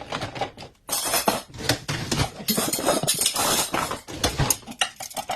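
Dishes and cutlery clattering as they are loaded in a hurry into a dishwasher's racks: a dense run of clinks and knocks, with a brief lull just under a second in.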